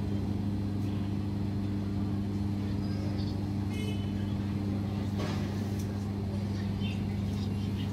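Steady low machine hum with several even tones, with faint clatter over it and a short sharp click about five seconds in.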